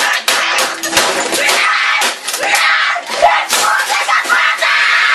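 A boy screaming in a rage over a rapid, irregular run of bangs and crashes as things on a desk are hit and thrown about.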